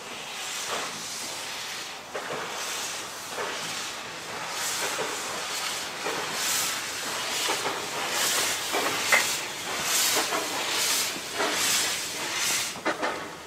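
Vale of Rheidol No. 8, a narrow-gauge 2-6-2 steam tank locomotive, pulling away with its cylinder drain cocks open: a steady loud steam hiss with exhaust chuffs that quicken from about halfway through as the engine gathers speed.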